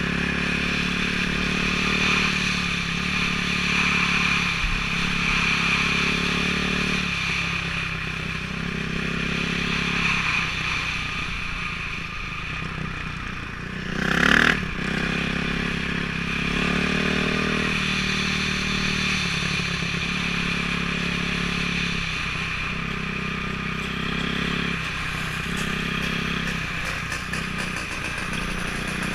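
Dirt bike engine running under the rider, its note dipping and picking up again every couple of seconds as the throttle is rolled off and on through the turns. A brief loud burst of noise about halfway through.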